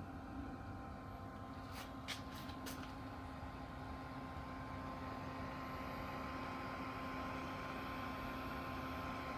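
BODEGA 12-volt portable compressor fridge running with a steady hum, with a few short clicks about two seconds in.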